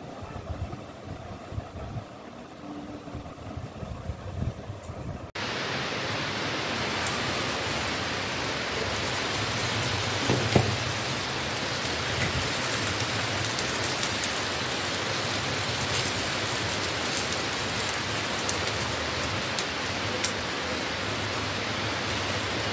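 Shami kebabs shallow-frying in oil in a pan: a steady sizzling hiss with faint crackles. It starts abruptly about five seconds in, after a stretch of quieter low rumble.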